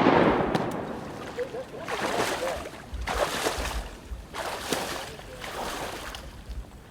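The echo of a shotgun volley dying away over about a second, followed by several short noisy swells of what sounds like water being splashed or sloshed.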